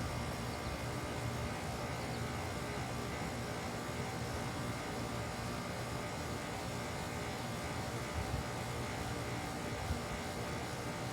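Bryant Legacy Line heat pump outdoor unit running with a steady mechanical hum, during its defrost cycle, with two small knocks near the end.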